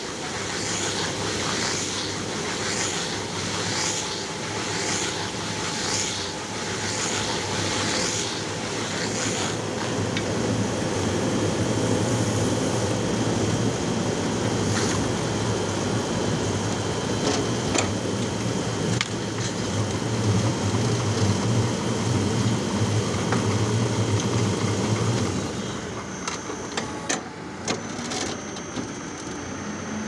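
Silage round baler-wrapper running, turning a round bale in stretch film, with a regular swish a little more than once a second for the first nine seconds, then a steady, louder machine hum. Near the end the hum drops and a few knocks are heard as the wrapped bale comes off the table.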